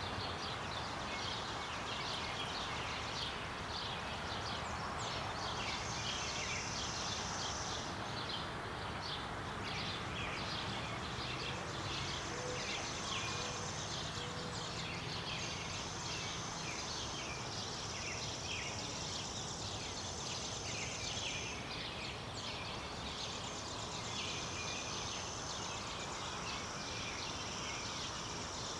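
Predawn birdsong: many birds chirping over a steady outdoor hiss, with a high steady trill that comes and goes for a few seconds at a time and three soft low notes about halfway through.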